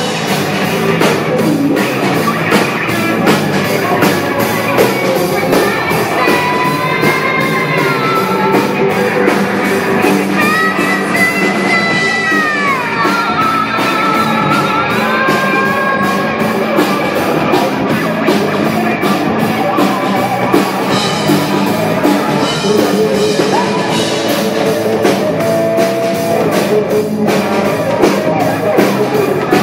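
Live rock band playing: drum kit keeping a steady beat under electric guitar and bass. Between about 6 and 16 seconds in, a lead part bends up and down in pitch.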